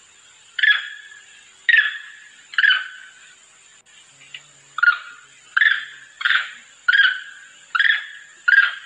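Macaque calls played as a hunting lure, the call of a monkey summoning others of its troop. Short, sharp calls come three about a second apart, then after a pause six in quicker succession, each fading quickly.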